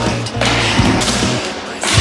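Background music with a heavy, regular beat.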